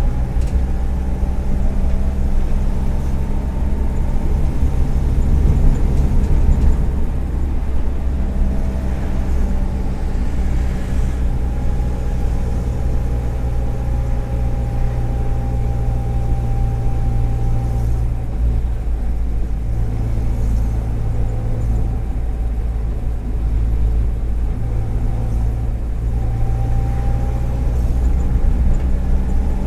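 Volkswagen EA111 1.4-litre four-cylinder engine of a 2009 Kombi running steadily at road speed. The spark plug leads and coil are in poor shape, which the owner says make it misfire at times, and he suspects the exhaust manifold is cracked.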